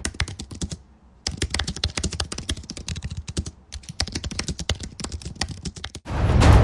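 Fast typing on a computer keyboard: rapid key clicks in three runs, broken by short pauses about a second in and about halfway through. The typing stops shortly before the end.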